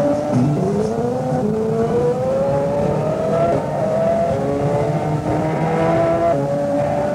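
Car engine accelerating hard, its pitch climbing and then dropping back to climb again several times.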